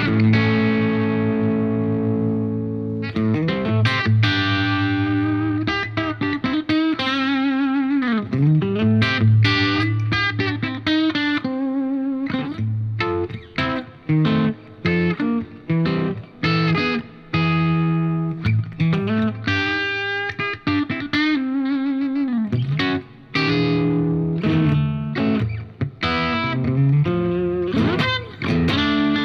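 Electric guitar played through a Scarlet Vibe uni-vibe-style pedal and an Origin Revival Drive overdrive into a Diezel Schmidt amp: a held chord, then picked notes and chords in phrases with short gaps, lightly overdriven with a wavering vibe modulation.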